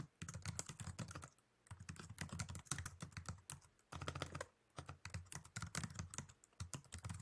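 Quiet typing on a computer keyboard: quick runs of keystrokes broken by a couple of short pauses.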